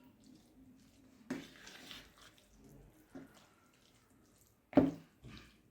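Chunky mashed-avocado guacamole being stirred in a bowl: soft, irregular wet squelching and scraping of the utensil through it, with one sharper knock about five seconds in.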